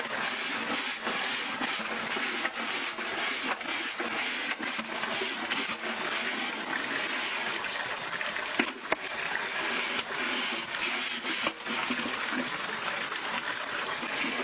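Water running and splashing steadily as a capuchin monkey scrubs dishes with a brush in a water-filled basin, with scattered light knocks and one sharper knock about nine seconds in.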